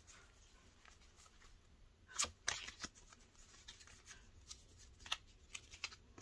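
Faint rustling and light clicks of paper cross-stitch charts being handled and shuffled through by hand, with a short run of louder rustles about two seconds in.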